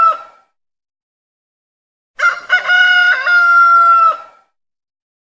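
A rooster crowing, the same recorded crow repeating: the tail of one crow right at the start, then after a short silence one full crow about two seconds in, a few quick notes and a long held note that drops off at the end.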